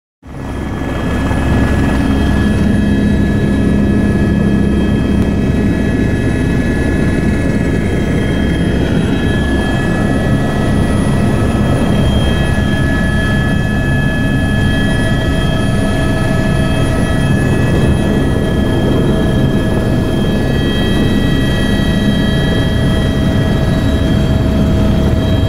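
Helicopter engine and rotor running at flight power, heard from inside the cabin: a loud, steady low rumble with several high whine tones over it. One of the high tones slides down about eight seconds in, as the helicopter lifts off and flies away low.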